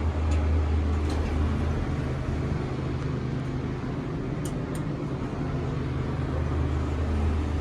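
Steady whirring hum of a vintage Dover elevator cab's ventilation fan, with a low drone underneath; a couple of faint ticks a little past halfway.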